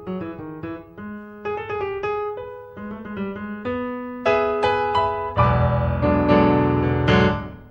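Piano accompaniment music: a line of separate, plucky notes, swelling about five seconds in into a loud, dense passage with heavy low notes that fades away near the end.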